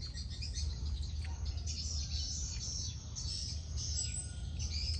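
Small birds chirping repeatedly over a steady low hum.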